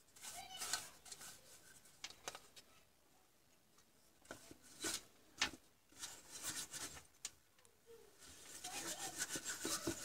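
Brush bristles scrubbing dust off an LCD monitor's power supply board, with irregular scratchy strokes that turn rapid and continuous near the end.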